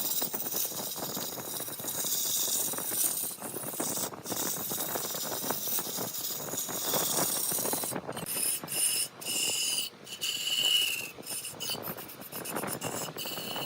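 Wood turning on a lathe: a tool scraping and cutting across spinning wood, a steady rasping hiss. It breaks off abruptly several times, and a thin high squeal comes in during the second half and again near the end.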